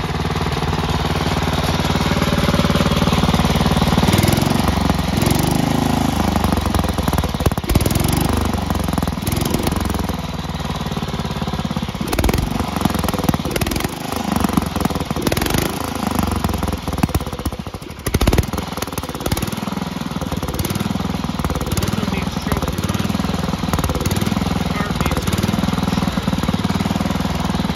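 A 1968 Sears Suburban 12 garden tractor's engine running and chuffing. Its speed rises and falls several times in the first half, and the sound dips briefly about two-thirds of the way through.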